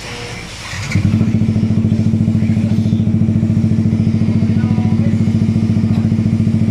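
Yamaha XSR 155 single-cylinder engine idling through an aftermarket SC Project canister on a custom elbow pipe. It is loud and steady, with an even, rapid pulsing, and comes in suddenly about a second in.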